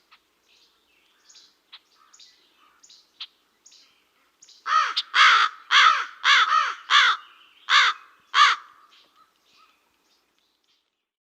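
Crow cawing: a few faint calls, then from about four and a half seconds in a run of about eight loud caws roughly half a second apart, each rising and falling in pitch, before it goes quiet.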